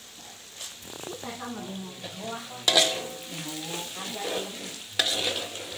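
Metal spatula stirring and scraping noodles frying in a wok on a gas stove, with two louder clanks of the spatula against the wok, one about halfway through and one near the end.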